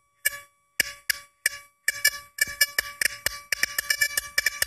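Square-wave-driven Rodin coil humming near its drive frequency of about 570 Hz, with higher overtones, while the spinning neodymium ball inside it knocks against the tube wall in sharp clicks. The knocks come about twice a second at first and crowd into a fast rattle after about two seconds as the drive frequency rises and the ball grows unstable.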